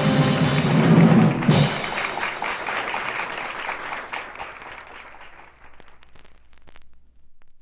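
A jazz piano trio's closing chord, held and then cut off about a second and a half in. It is followed by live audience applause that fades away.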